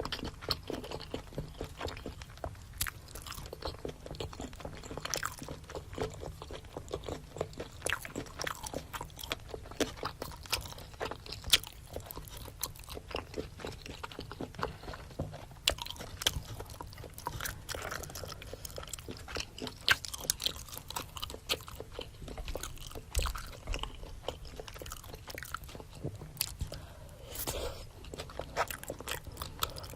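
Close-miked eating: wet chewing and biting of seafood and rice cakes, with many quick smacking and crunchy clicks in an irregular rhythm and a few louder bites.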